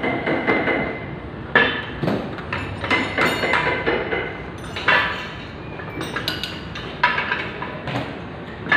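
Hand tools and manual-transmission parts knocking and clinking as the gearboxes are taken apart, a handful of sharp strikes with a short ring after each.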